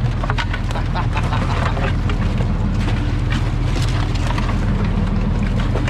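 Dungeness crabs' shells clicking and clattering against each other and the sorting tray as they are picked up and sorted by hand, over the steady running of the boat's engine.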